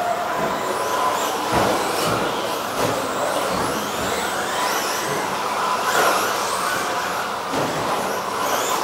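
Several 13.5-turn brushless electric RC stadium trucks racing on carpet: overlapping high motor whines rising and falling as they speed up and slow down, with a few short knocks from landings or hits.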